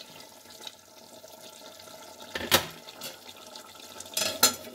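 A utensil knocking sharply against a cooking pot, once about halfway through and again in a quick cluster near the end, over a low, steady, watery hiss of chicken curry simmering in its own juices.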